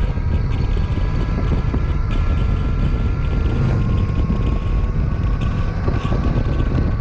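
Motorcycle engine running under way, heard from the rider's position, with a steady engine note that rises a little in pitch over the second half and heavy wind rumble on the microphone.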